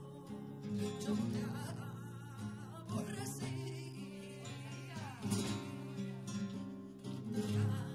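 Live flamenco: acoustic flamenco guitar playing, with a singer's wavering, ornamented voice coming in at times.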